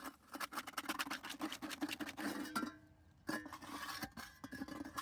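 Rapid, scratchy scraping in many short strokes, with a brief pause a little past halfway.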